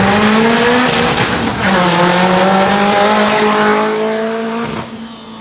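Toyota Corolla with an aftermarket loud exhaust, revving hard as it drives past. The engine note climbs, drops once about one and a half seconds in, then holds and fades near the end.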